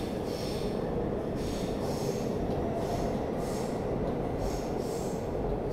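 Seoul Subway Line 4 D450 electric train, a new Dawonsys-built trainset on a test run, pulling out of the station behind the platform screen doors. A steady running noise with recurring high-pitched swells about once a second.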